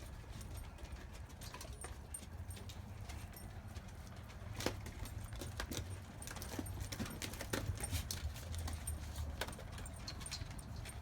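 Labradoodle puppies eating from feeding pans: scattered, irregular clicks and clinks of food and teeth against the pans, over a steady low rumble.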